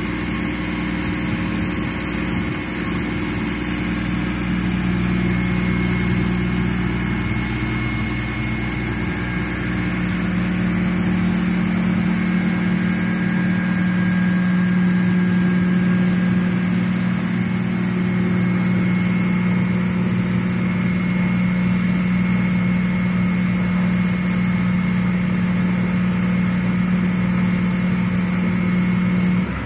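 Tracked excavator's diesel engine running steadily at a constant speed while the machine works its hydraulics. It grows a little louder about a third of the way in.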